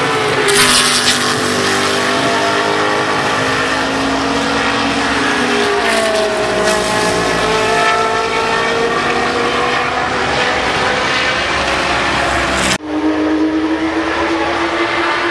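GT race car engines passing through a corner, several at once, their pitch rising and falling as the cars slow and accelerate. Near the end the sound breaks off abruptly and gives way to one car's engine pulling up steadily in pitch.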